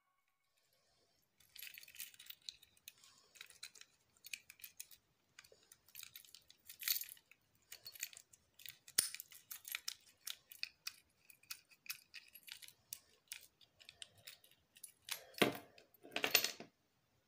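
A small metal padlock worked in the hands: a run of light metallic clicks and rattles, with two louder clacks near the end.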